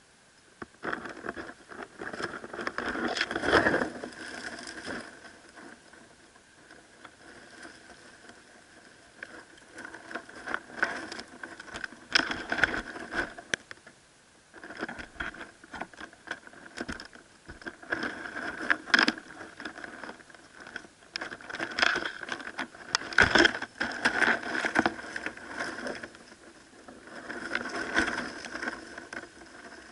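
Lace monitor's claws scraping and tapping on the clear plastic box around the camera, and rustling dry leaf litter as it moves, in irregular bouts with a few sharp clicks.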